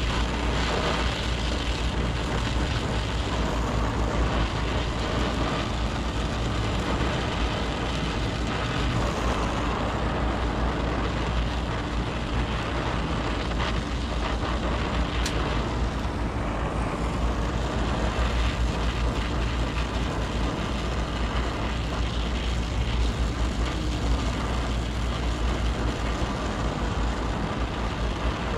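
Brazing torch flame hissing steadily while a copper joint on a condenser coil is heated and brazed, over a low steady rumble.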